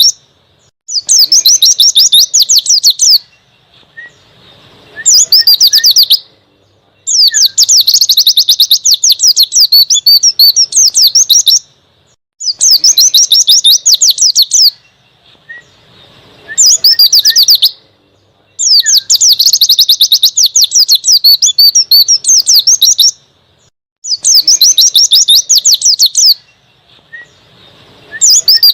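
White-eye (pleci) singing its wild-type twittering song in repeated bursts of rapid high chirps, each lasting one to five seconds with short pauses between.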